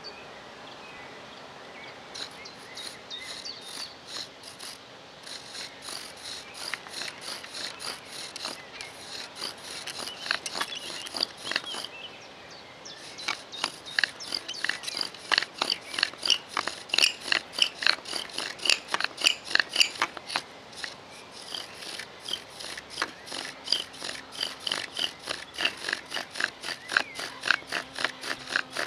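Bow drill being worked: the wooden spindle squeaks as it is spun back and forth against the wooden hearth board and handhold, in rhythmic strokes about two to three a second, the wood-on-wood friction meant to raise smoke and an ember. The strokes start about two seconds in, pause briefly around the middle, then come back louder.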